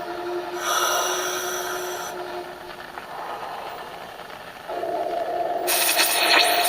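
Layered sound collage of noise and steady tones: a burst of hiss about half a second in, then a wider band of noise entering near the end and growing louder, turning into loud white-noise-like hiss.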